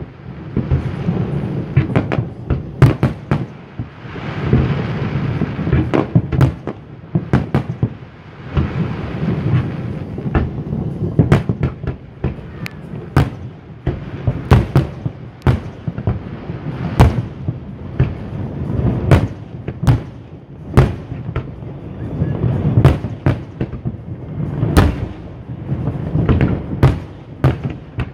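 Aerial fireworks shells bursting one after another in a harbour display: many sharp bangs at irregular intervals, some in quick clusters, over a continuous low rumble.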